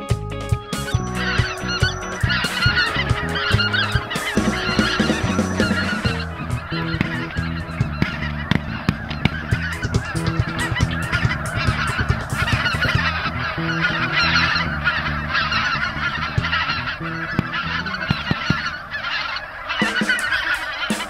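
A large flock of snow geese calling: many overlapping high-pitched honks without a break, starting about a second in.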